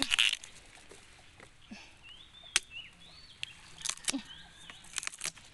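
Young bamboo branch shoots being snapped off by hand, a crackle of stalks and dry leaves at the start, then a few sharp separate snaps. Faint bird chirps come in the middle.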